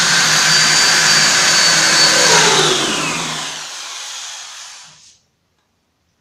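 Corded electric drill, in drill mode rather than hammer mode, boring a screw hole through a melamine board with a countersink bit. Its high whine slides down about two and a half seconds in as the motor spins down, and the sound stops about five seconds in.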